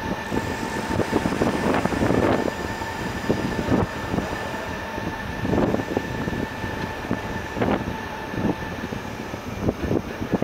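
Electric tourist train riding along, with a steady whine over irregular knocks and rattles from the carriages. The whine fades out near the end.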